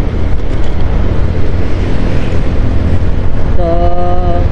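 Steady low wind rumble on a helmet-clipped microphone while riding a Honda scooter, with the scooter's engine and road noise underneath. A short held tone sounds near the end.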